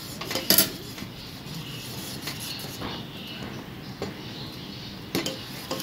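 Steel ladle stirring thick, boiling finger millet porridge in a stainless-steel pot, scraping with a few sharp clinks against the metal, about half a second in and twice near the end.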